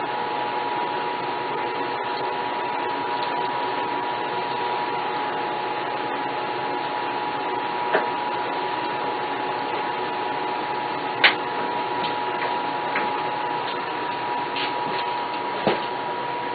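Steady machine hum with a constant high tone, interrupted by three short sharp clicks, about eight, eleven and fifteen seconds in.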